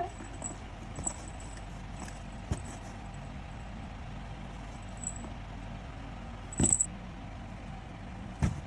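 A cat playing in a box, making a few short knocks and small metallic jingles. The loudest knock and jingle come about two-thirds of the way through, over a steady low hum.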